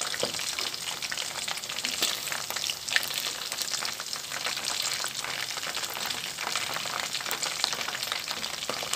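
Chicken wings frying in hot oil in a stainless steel pot: a steady crackling sizzle, with occasional sharper clicks of metal tongs against the pot as the wings are turned and lifted out.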